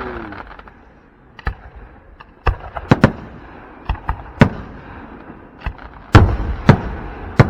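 Fireworks bursting in an irregular series of sharp bangs, about ten in all, the loudest about six seconds in.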